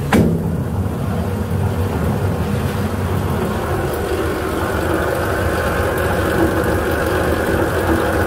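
Electric roller mill running steadily as it grinds rice into flour for rice cakes: an even, dense machine noise with a low hum underneath.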